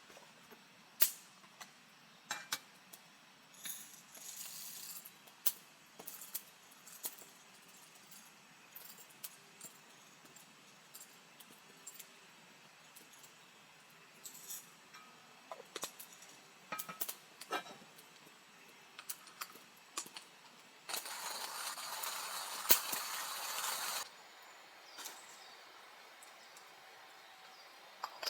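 Camp cookware and utensils clinking and tapping in scattered short knocks, with a steady hiss for about three seconds near the end.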